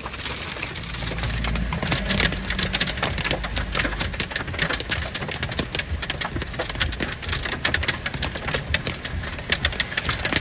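Hail and rain pelting a car's roof and windshield, heard from inside the cabin: a steady hiss with a dense, uneven patter of sharp clicks and taps that grows thicker from about two seconds in.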